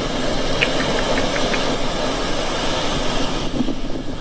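Heavy surf breaking on a beach: a loud, steady rushing noise of large waves, with a few faint high chirps about a second in.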